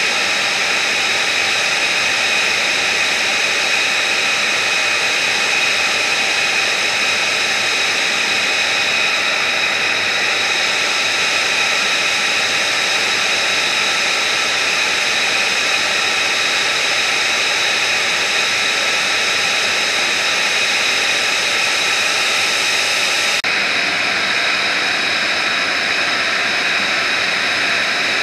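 F-35B's Pratt & Whitney F135 jet engine running at idle, a steady high whine over a constant rush of air.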